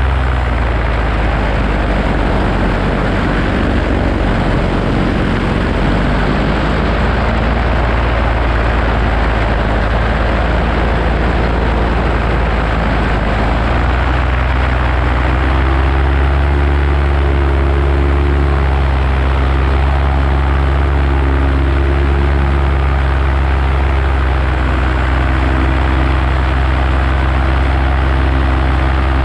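Paramotor engine and propeller running steadily in flight, with a slight change in the engine note about halfway through.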